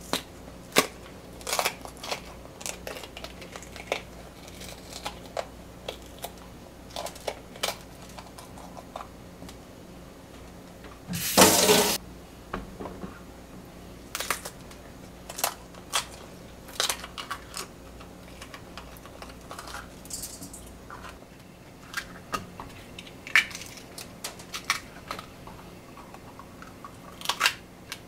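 Green peppers being cored by hand on a plastic cutting board: scattered light snaps, taps and clicks as stems are pulled out and peppers are set down, with one louder noise lasting under a second about eleven seconds in.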